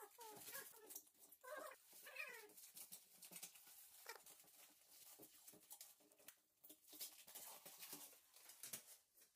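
Blue protective plastic film being peeled by hand off marble-pattern almari door panels: a faint, continuous crackling rustle of the film coming away, with a few short squeaks near the start.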